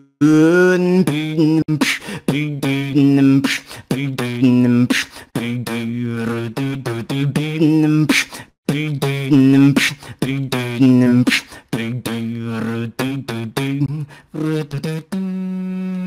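Solo vocal beatboxing: mouth-made kick and snare hits woven between hummed, pitched vocal lines, ending on a long held hum.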